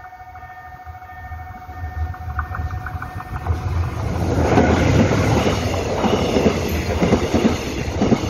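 Level-crossing warning bell ringing steadily as an electric locomotive hauling a Mugunghwa passenger train approaches. From about three seconds in, the train's rumble and wheel clatter build up and drown out the bell as the locomotive and carriages pass close by.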